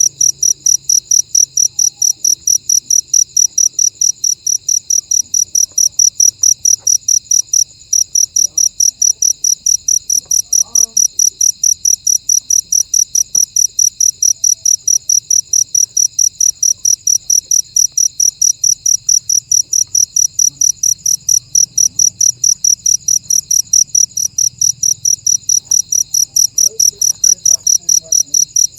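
A cricket chirping close by: a loud, high-pitched chirp repeating steadily about four times a second, with one brief break about eight seconds in.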